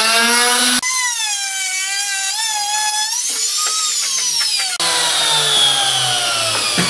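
Handheld trim router (laminate trimmer) running with a high whine, then switched off and winding down, its pitch falling steadily through the second half. It is a 220 V machine run on 110 V while cutting only lightly, which gives it a different sound. A short knock near the end.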